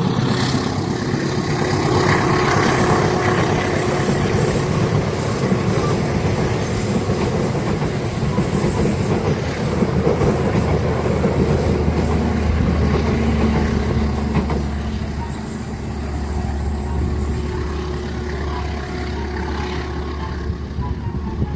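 Train running past, wheels clattering over the rails with a steady low rumble that deepens in the second half.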